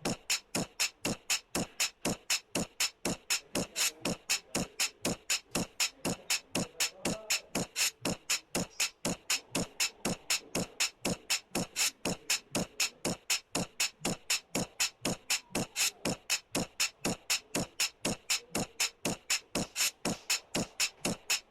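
Alarm clock radio's alarm beeping: a steady run of short, sharp beeps, about three to four a second, at an unchanging pace.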